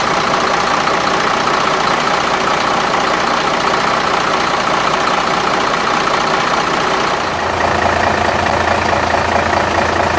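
Heavy diesel truck engines idling: a loud, steady mechanical drone, with a low hum joining about seven seconds in.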